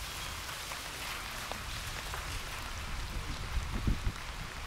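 Steady heavy rain falling, with a low rumble underneath and a few dull thumps about four seconds in.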